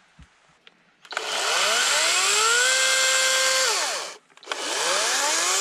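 Greenworks cordless electric chainsaw run up twice. Its motor whine rises to a steady pitch, holds, then falls and stops about four seconds in. Half a second later it spins up again and is still rising near the end.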